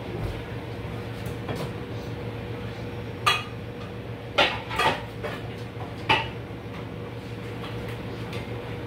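Metal pots, pans and lids clanking and clinking as cookware is handled, with several sharp clanks in the middle, over a steady low hum.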